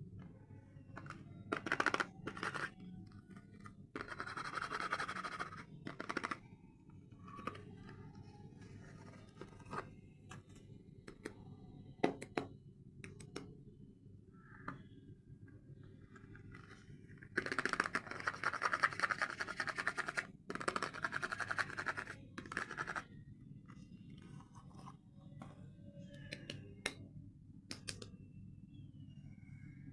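Soap packaging being handled and unwrapped: bursts of scratching and rustling, the longest about halfway through and lasting several seconds, with scattered sharp clicks in between.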